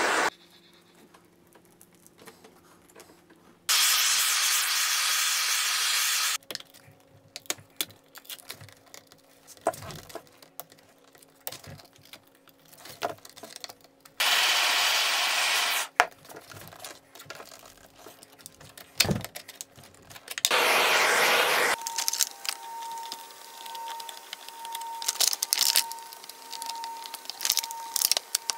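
Handheld gas torch hissing in several bursts of a few seconds each, heating a flexible solar panel's plastic backing to soften it. Between the bursts, a knife scrapes and the backing peels and tears with small clicks and crackles.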